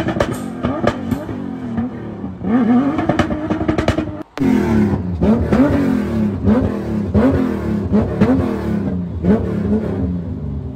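Tuned Toyota Land Cruiser engine held at high revs in a smoky burnout. After a break about four seconds in, it is revved in quick repeated blips, about ten of them, each rising and falling, with sharp exhaust pops as flames shoot from the side exhaust.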